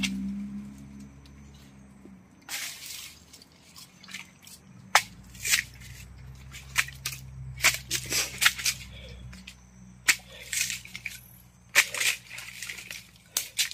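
Machete chopping into an asam payak palm stem to get at its heart: about a dozen sharp, irregular strikes, bunched most closely between about five and nine seconds in.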